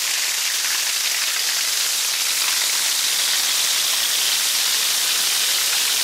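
A small waterfall pouring down a rock face and splashing onto rock close by: a steady, hissing splash.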